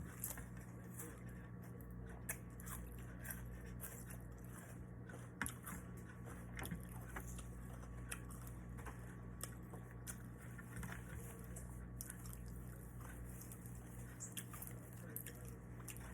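A person chewing and crunching a mouthful of naem (Thai fermented pork) with fried chillies close to the microphone, with scattered small crunches and mouth clicks, over a steady low hum.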